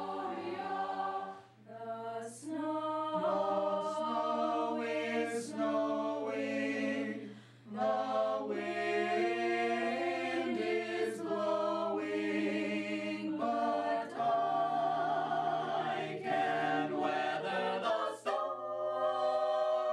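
A mixed-voice school choir singing in harmony, holding sustained notes, with brief breaks between phrases about one and a half and seven and a half seconds in.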